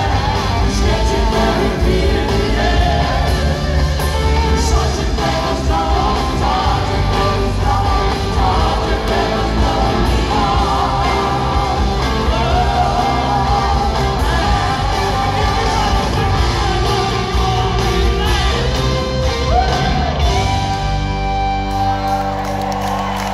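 Live rock band playing through a large arena's PA, with a sung lead vocal over guitars, bass and drums. About twenty seconds in, the band settles into steady held notes.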